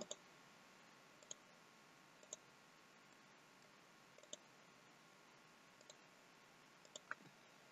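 Faint single clicks of a computer mouse button, about seven, spaced a second or more apart, with two in quick succession near the end.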